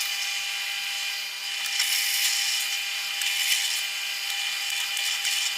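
Drill press fitted with a 10 mm hollow mortise chisel, running with a steady hum while the bit cuts into wood with a continuous rasping hiss.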